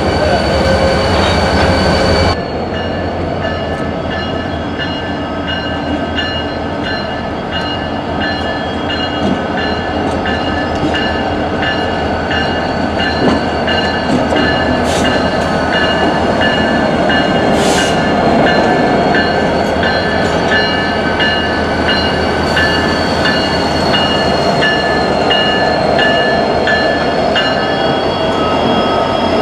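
Union Pacific diesel-electric locomotives rolling slowly past at close range: engine rumble with steady metallic wheel squeal and rhythmic clicking of the wheels over the rail joints. The sound changes abruptly about two seconds in.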